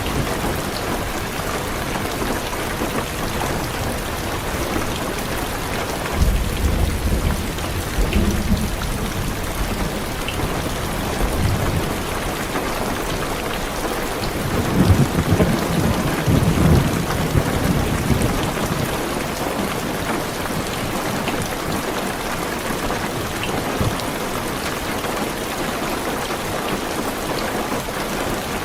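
Heavy rain falling steadily on a car's roof and windows, heard from inside, with two low rolls of thunder, one about six seconds in and another around fifteen seconds in.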